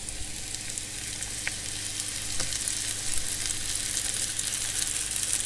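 Flour-dusted diced beef searing in a little hot oil in a cast iron pan: a steady sizzle, with two faint ticks about a second apart.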